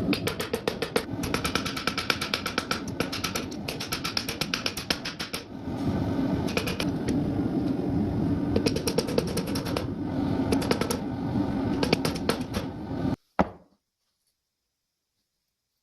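Steel being struck with a hammer in rapid, evenly spaced blows, each hit ringing. About 13 seconds in it cuts off abruptly to silence.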